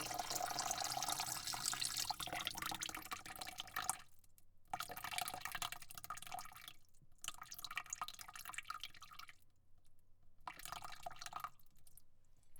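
Water spraying into a bucket: a steady spray for about four seconds, then it cuts off and comes back in three shorter bursts with brief pauses between, the last stopping about a second before the end.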